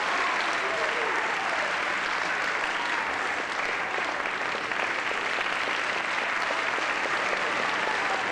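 Theatre audience applauding steadily after a ballet dance.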